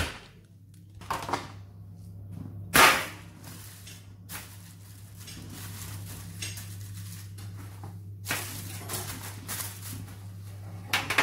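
Plastic food packaging being handled: crinkling and rustling of film and trays, with one sharp snap about three seconds in, the loudest sound, and more crackling near the end, over a low steady hum.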